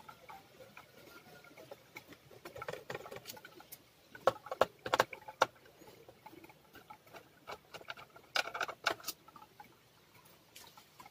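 Small screwdriver working the tiny screws out of an Asus A43S laptop's plastic base: scattered light clicks and scrapes, with runs of sharper clicks about four to five seconds in and again around eight to nine seconds.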